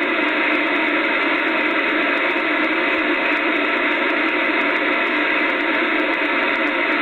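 Steady hiss of band static from a Kenwood TS-2000 ham radio receiver's speaker, with no signal coming through between transmissions.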